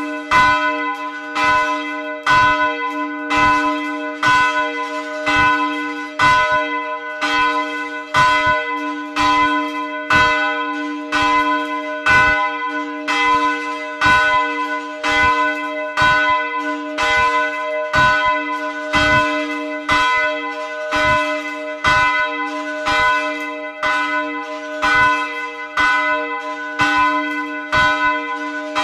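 A church's middle bell swinging in its tower, its clapper striking about once a second. Between the strokes a steady low hum note and bright overtones ring on, heard from close beneath the bell.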